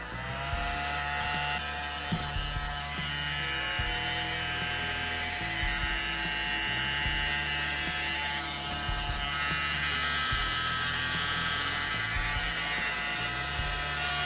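Clatronic TS 3530 mini handheld vacuum cleaner, a small battery-powered motor, spinning up with a rising whine, running steadily, then winding down near the end.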